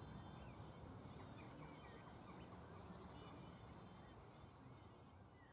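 Faint birdsong: many short chirps rising and falling in pitch, over a low steady rumble, fading out near the end.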